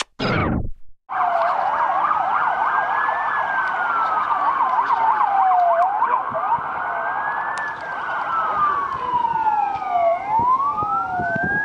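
A short falling whoosh, then sirens sounding together: one wailing slowly up and down over a few seconds, another yelping in fast up-and-down sweeps for the first several seconds.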